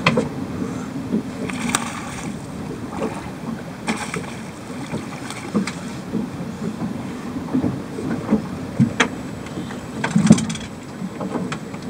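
Wind and water noise around a small fishing boat on choppy water, with irregular short knocks and clicks every second or two.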